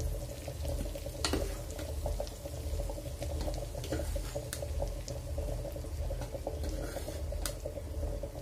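Hot ghee in a steel pan bubbling and sizzling softly as gram flour is spooned into it, with a few sharp clicks of the spoon against the pan, over a steady low hum.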